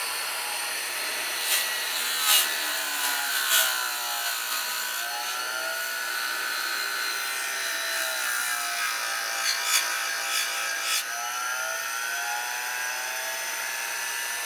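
Grinder spinning steadily while a small steel compressor reed valve is held against it to clean it up, its pitch sagging and recovering under the load. Short sharp scrapes come in two clusters, near the start and about two-thirds of the way through.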